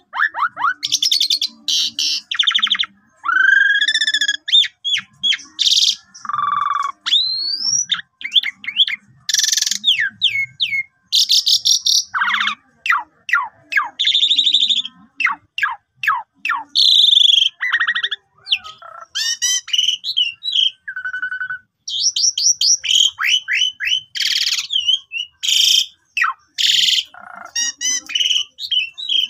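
Pied myna (jalak suren) singing a long, varied song: pitched whistles, fast repeated chattering notes, up-and-down glides and harsh rasping bursts, one phrase after another with only short pauses.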